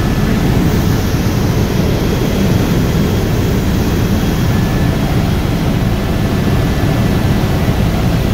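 Helicopter in flight heard from inside the cabin: a steady, loud, low rumble of the engine and rotor.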